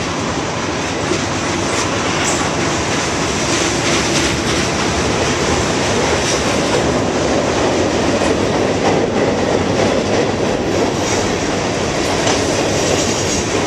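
Freight train cars (tank cars, covered hoppers and gondolas) rolling past, with a steady rumble of steel wheels on rail and occasional wheel clicks.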